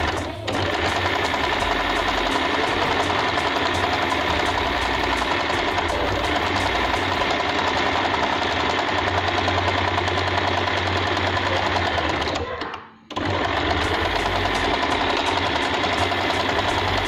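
Usha Janome Dream Stitch electric sewing machine running steadily, its needle stitching a zigzag seam through cotton cloth. The machine slows and stops for a moment about three-quarters of the way through, then runs on again.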